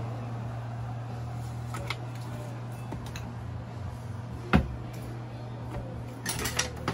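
Kitchen handling sounds over a steady low hum: a few light taps, then a sharp knock about four and a half seconds in as a kitchen cabinet door shuts, and a quick run of clicks near the end as a spoon goes into the pot.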